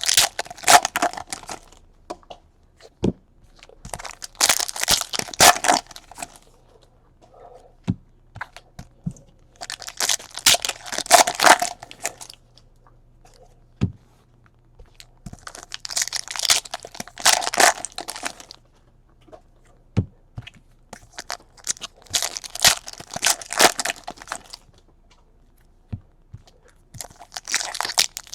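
Foil trading-card pack wrappers being torn open and crinkled, in about five bursts roughly six seconds apart, with light taps and clicks between them.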